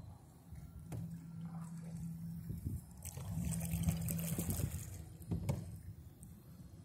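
Canoe paddling: water splashing and trickling off the paddle, with the loudest stroke a little past the middle and a couple of sharp knocks, and a faint low hum at times.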